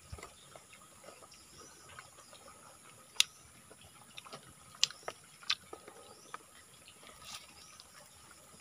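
Quiet eating by hand: a handful of short, sharp clicks and taps from fingers and food, spread through an otherwise hushed stretch.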